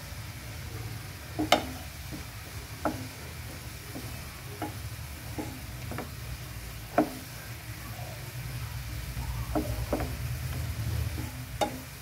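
A wooden spatula stirring diced watermelon rind in simmering sugar syrup in a non-stick pan, knocking sharply against the pan every second or two. Underneath is a steady low rumble from the bubbling syrup.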